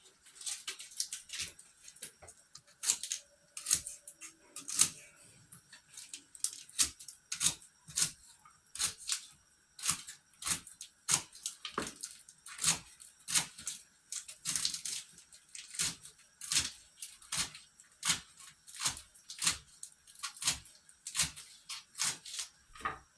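A kitchen knife knocking on a cutting board in an even, unhurried rhythm, about four strokes every three seconds, as greens are cut.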